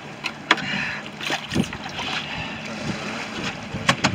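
Water sloshing and splashing in a plastic bucket as a blackfish (tautog) is handled in it, with a few sharp knocks against the bucket, bunched near one and a half seconds in and near the end. Wind on the microphone runs under it.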